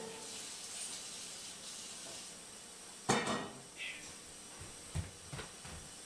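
Faint steady hiss of an old videotape recording with no programme sound, broken by a few scattered knocks and clicks, the loudest a sharp knock about three seconds in.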